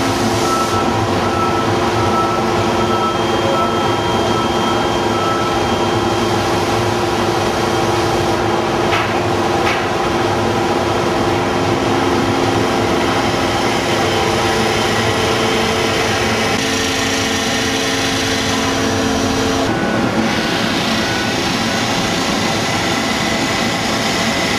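Steady machinery noise of a die-casting foundry cell: a constant hum and hiss with several held tones, some of which shift a few times, and no distinct impacts.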